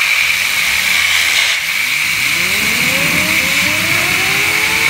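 Compressed-air blow gun hissing loudly as it blasts two fidget spinners. From about two seconds in, a whine climbs steadily in pitch as the spinners speed up.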